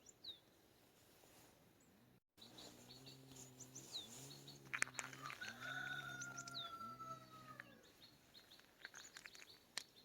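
Birds chirping in short downward-sweeping notes. In the middle come four low calls in a row and a long, slowly falling whistle, with a few sharp clicks scattered through. The sound drops out briefly about two seconds in.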